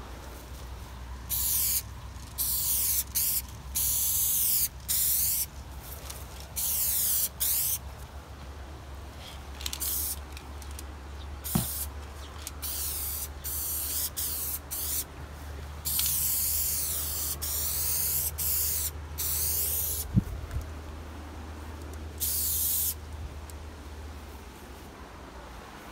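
Aerosol spray paint can hissing in many short and longer bursts, starting and stopping again and again as outlines are painted. Two sharp clicks cut in, one near the middle and a louder one about three-quarters through.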